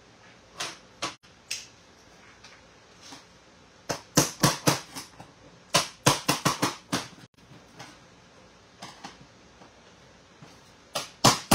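Hammer blows on a tool set against the metal door of a Vendo 81 soda machine, knocking out two small rivets: three single taps, then short runs of quick sharp blows.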